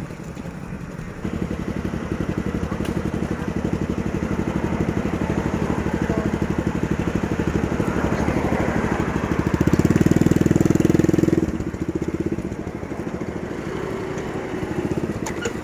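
A small engine running steadily. It grows louder for about two seconds past the middle, then settles back.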